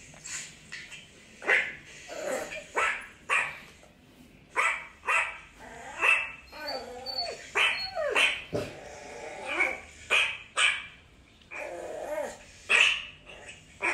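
A dog barking repeatedly in short yaps, roughly one a second, with a wavering whine in the middle.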